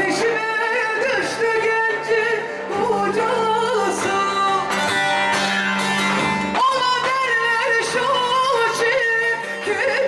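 Live music amplified through a PA: a woman sings a wavering, ornamented melody into a microphone, accompanied by a plucked bağlama (long-necked lute) over held low notes.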